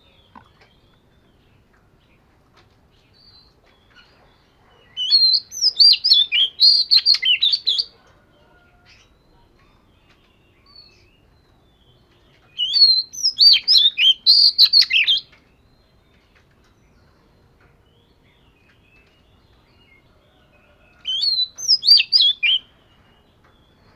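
Oriental magpie-robin singing: three bursts of quick, varied whistled phrases, each two to three seconds long, with pauses of several seconds between them.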